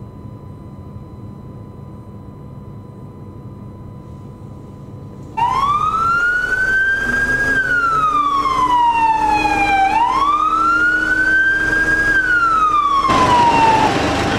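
Ford Transit Custom police van's siren on a wail tone, starting suddenly about five seconds in. It goes through two slow cycles, each rising quickly, holding and then falling away. Before it starts there is only a quiet steady hum, and near the end street traffic noise comes in.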